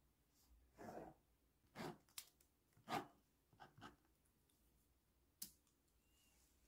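Near silence broken by a handful of faint, short rustles and clicks, the sharpest one a single click about five and a half seconds in.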